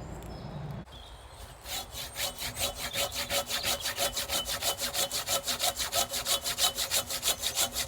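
Hand saw cutting through wood with quick, even back-and-forth strokes, several a second, starting about two seconds in.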